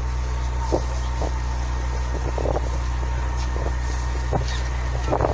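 A boat's engine running with a steady low drone, with scattered light taps over it.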